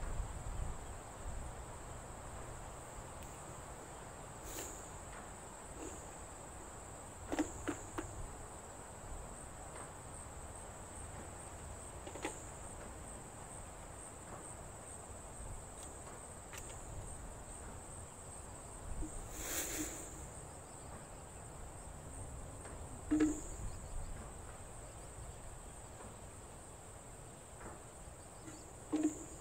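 Steady high-pitched drone of insects. A few short knocks of things being set down on a wooden plank come over it, the clearest about two-thirds of the way in.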